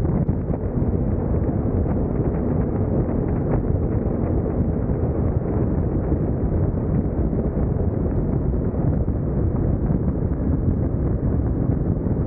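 BMW R1150GS Adventure's boxer-twin engine running under way, mixed with steady wind rush on the microphone.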